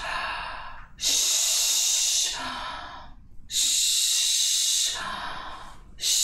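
A woman's forceful hissed exhalations, three long hisses each lasting about a second and a half, with quieter breaths drawn in between them, as part of a vocal breathing exercise.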